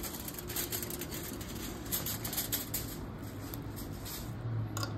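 A metal fork mashing and scraping potatoes in a glass baking dish, with a run of irregular small clicks of metal against glass.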